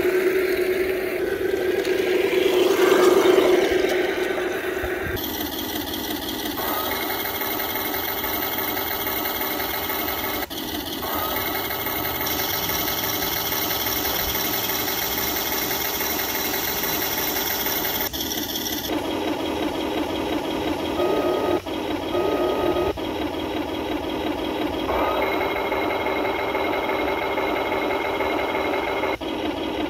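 Radio-controlled scale model Tiger I tank running, a steady mechanical whirring and rattle of its electric drive and gears, changing in pitch several times. Wind noise on the microphone.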